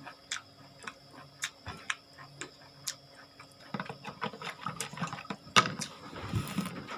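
Close-up mouth sounds of a person eating: scattered wet clicks and smacks of chewing, busier in the second half.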